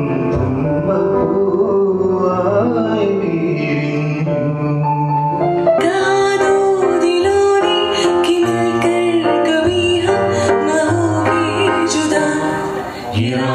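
Live acoustic music: male and female voices singing a melody into microphones over instrumental accompaniment. About six seconds in, the accompaniment fills out with brighter, sharply struck notes.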